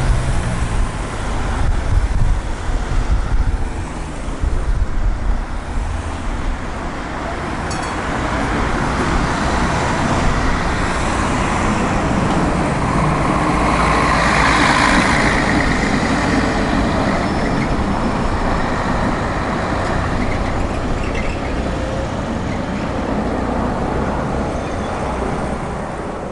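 Tatra KT4D tram running along the track, a steady rumble that swells and grows brighter about halfway through.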